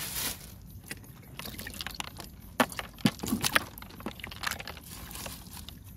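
Water sloshing and dripping in a cooler as a hand moves through it among fish and plastic bottles, with a few sharp knocks and clicks about halfway through.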